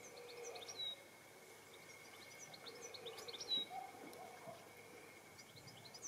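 A garden songbird singing in the background: a phrase of quick high notes ending in one clearer note, twice, a few seconds apart, over a faint steady high tone.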